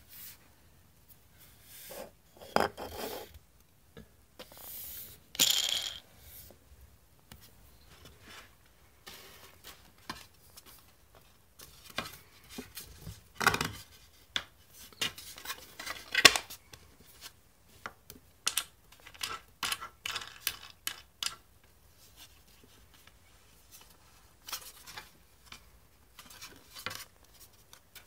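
Irregular clicks, knocks and scraping as a 3D-printed plastic tripod shoe and a wooden board are handled and fitted together on a tabletop, with quiet gaps between. The sharpest knocks come about five seconds in and again around sixteen seconds.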